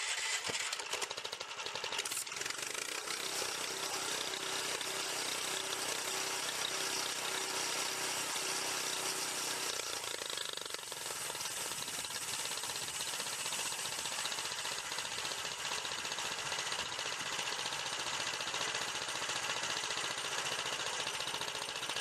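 Small gasoline engine on a homemade bandsaw mill running steadily, with a rattling mechanical clatter; its tone shifts slightly about halfway through.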